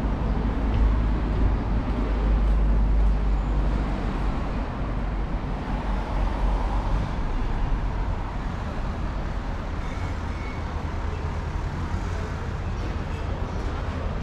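Town street ambience: a steady low rumble of road traffic.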